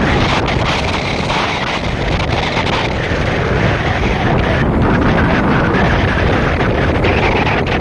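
Wind rushing and buffeting the microphone of a camera filming from a moving vehicle, over the steady low rumble of the vehicle travelling on the road.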